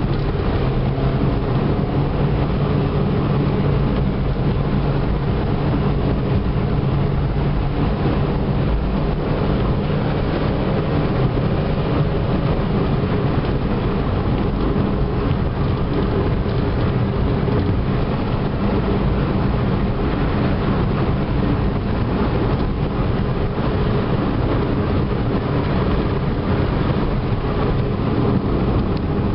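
Ford Fiesta Mk4 1.25's four-cylinder petrol engine pulling at a steady pace, with tyre and road noise, heard from inside the cabin on the move.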